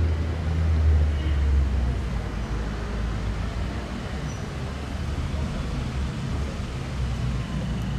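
Steady low rumble of outdoor background noise, heaviest in the first couple of seconds, with no distinct events.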